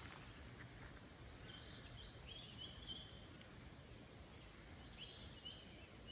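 Faint bird calls in the bush: two bouts of short, high chirps, about a second and a half in and again near five seconds, over a quiet low background rumble.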